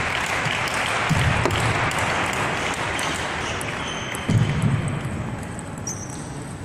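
Table tennis balls clicking off bats and tables in a large sports hall, over a steady wash of crowd noise that sounds like clapping for the first few seconds, then thins.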